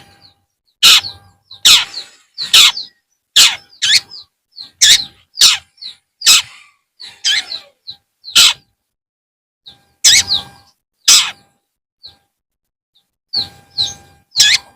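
Long-tailed shrike (cendet) giving short, harsh, scratchy calls about once a second, with brief high whistled notes between them. It pauses twice, for a second or so each time.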